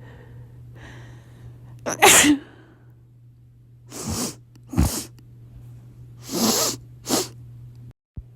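A person sneezing several times in a row, set off by dust: the loudest sneeze comes about two seconds in, and more follow around four to five seconds and six to seven seconds in.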